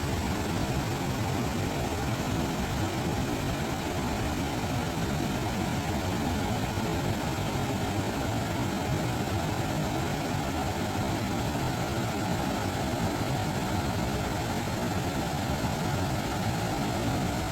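Waterfall rushing: a steady, even noise of falling water, heaviest in the low pitches.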